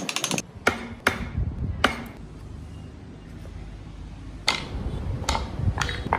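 Hammer knocking on wood: separate sharp blows, a few in the first two seconds, a lull of about two seconds, then several more near the end.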